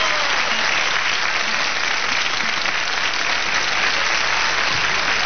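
Large studio audience applauding steadily, a dense even clatter of many hands clapping.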